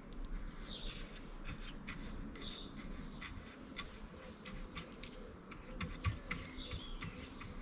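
Paintbrush scratching and dabbing along the edges of a plastic boot lid handle, a few short scratchy strokes among scattered light clicks of brush and plastic.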